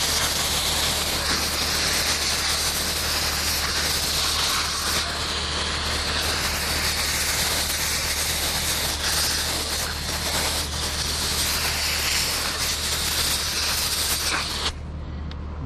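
Garden hose spray nozzle spraying a steady hiss of water onto freshly caught ladyfish on a wooden cutting board, washing off sand and loose scales. The spray cuts off near the end.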